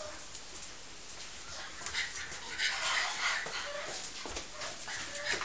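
English bulldog puppies whimpering and yipping in play, busiest from about a second and a half in.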